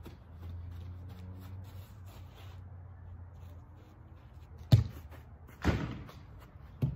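A soccer ball kicked hard on artificial turf, a sharp smack about two-thirds of the way in. About a second later the ball strikes something downfield with a longer, rattling impact, and a lighter thud follows just before the end.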